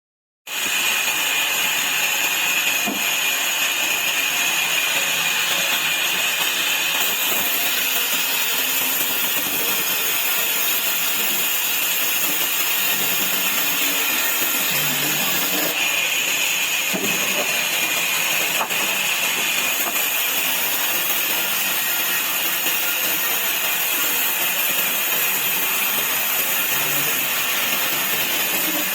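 Sawmill saw cutting wood into slats: a steady, high-pitched machine noise.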